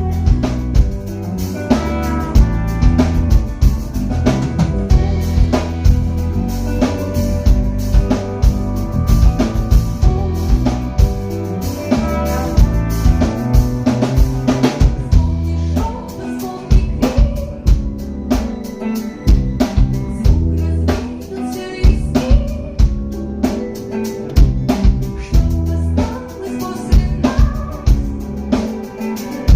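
Music with a steady drum-kit beat of bass drum and snare over sustained pitched instruments.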